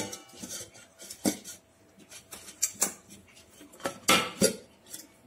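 Stainless steel plate and steel cake vessel clanking and knocking together in a series of sharp clatters as the vessel is inverted onto the plate to turn out a cake, the loudest clanks about four seconds in.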